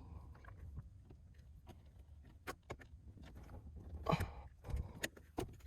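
Faint, scattered small clicks and ticks of needle-nose pliers working at the plastic retaining clips of a steering-column clock spring, with a short cluster of louder clicks about four seconds in.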